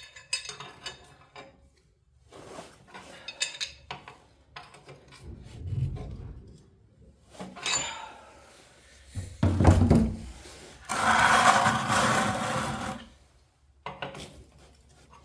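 Metal wrench and tool clinks and scrapes as the Farmall B's stuck oil-pan drain plug, just broken free, is turned out. About eleven seconds in comes a louder two-second stretch of steady noise.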